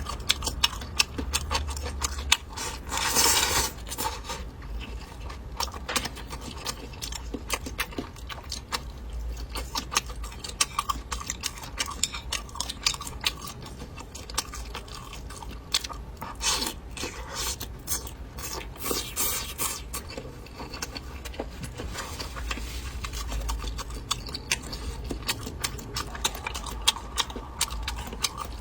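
Close-miked chewing of braised beef brisket: a dense, irregular run of small mouth clicks and smacks, with a few louder bursts of noise.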